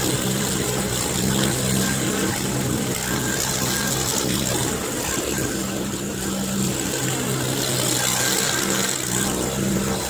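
Mustang 310 mini skid steer's engine running as it drives and pushes snow, its note changing every second or two.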